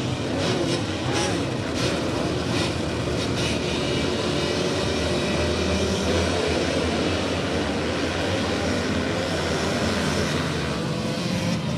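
A full gate of motocross bikes' engines revving together at the start line, a dense buzzing drone of many engines at once, as the pack gets away at the start of the race.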